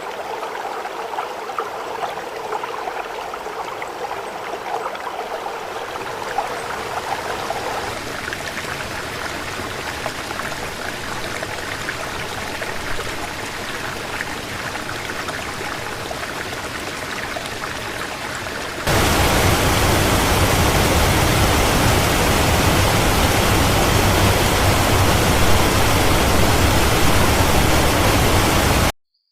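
Steady rushing of running water, like a stream. About two-thirds of the way through it cuts to a louder, deeper, fuller rush of water, which stops abruptly near the end.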